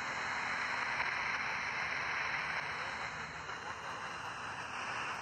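Steady hiss of shortwave static from the speaker of a Tecsun PL-310ET portable radio.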